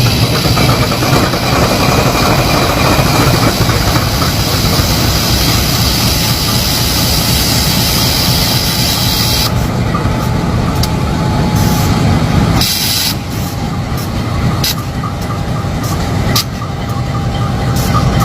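Diesel engine of a CC 203 diesel-electric locomotive running loudly and steadily with a deep hum. The sound changes abruptly about ten seconds in, dips about thirteen seconds in, and comes back up near the end.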